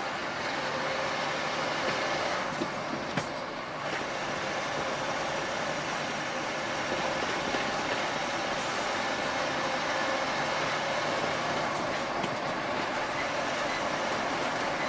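Steady running noise of a truck on the road, heard from inside the cab, with a few light clicks about two to three seconds in.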